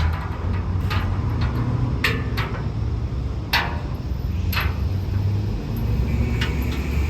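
About seven sharp metal clinks and knocks, spaced unevenly, over a steady low rumble, with a thin high ringing tone near the end.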